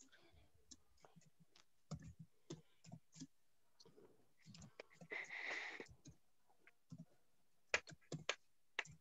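Faint scattered clicks and light taps, with a short hissing rustle about five seconds in.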